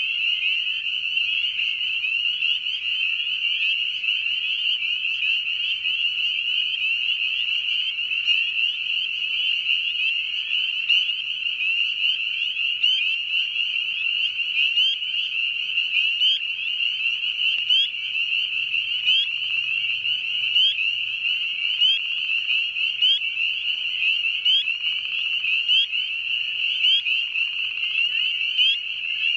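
Spring peeper chorus: a dense, continuous high-pitched ringing of many frogs calling at once. Through it, one nearer peeper repeats short, rising 'peep' calls.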